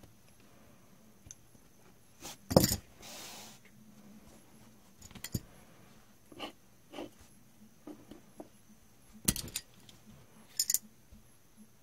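Small clicks and ticks from a metal needle and a flat metal blade handled on a wool kilim while new warp threads are worked into the weave. The loudest clicks come about two and a half seconds in and again near nine seconds, with a short rustling scrape just after the first.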